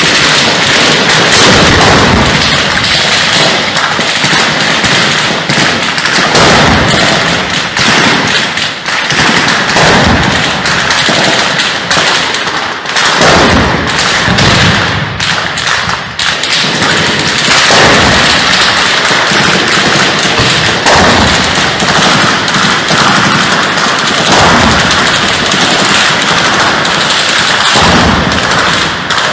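Repeated loud bangs and thuds of gunfire and tank shelling hitting a building, one sharp strike following another, with a shell striking the building at about 13 seconds in.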